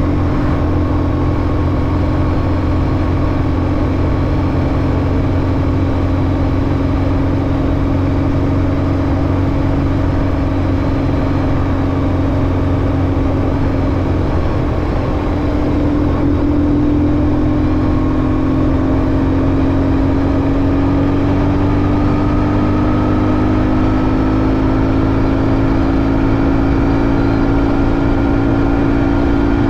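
BMW R1150GS air-cooled boxer-twin engine running steadily while the bike is ridden. Engine speed eases briefly about halfway through, then climbs slowly toward the end.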